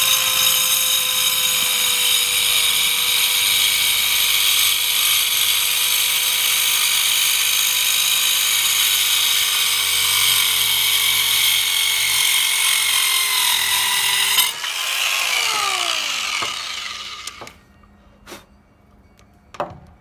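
Corded 4-amp mini circular saw with a 4-1/2 inch carbide-tipped blade running through a cut in a board: a steady high whine whose pitch sags slightly under the load of the cut. About 14 seconds in the trigger is released and the whine falls away as the blade spins down, followed by a few sharp knocks near the end.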